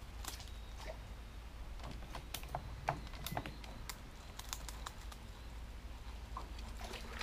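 Faint, irregular light clicks and small taps from fishing tackle being worked as a lure is retrieved, over a low steady hum.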